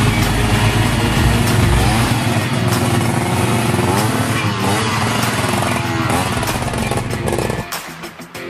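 Trail motorcycle engine revving hard, its pitch rising and falling again and again as the bike struggles for grip in deep mud on a climb. The engine sound drops away sharply shortly before the end.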